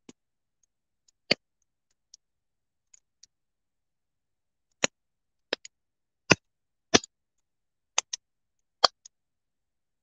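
Fire crackling: sharp, irregular pops, a few in the first seconds and more often in the second half, some in quick pairs.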